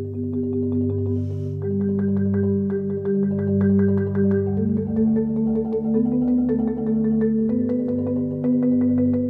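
Background music: rapidly repeated struck notes ring over sustained low tones, and the chord shifts every second or two.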